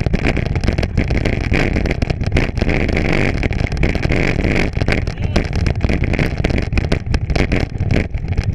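A bike ridden fast over a rough trail behind pulling dogs: steady rushing noise with a heavy rumble and many small rattles and knocks from the frame.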